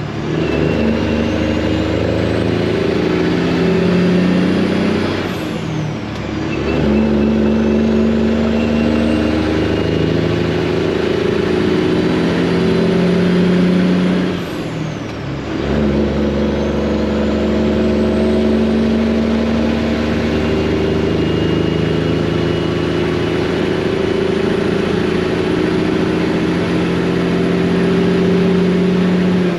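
Detroit diesel engine of a Freightliner semi-truck pulling a loaded trailer, accelerating through the gears. Engine pitch and a turbo whistle climb, then drop at two shifts, about six and fifteen seconds in.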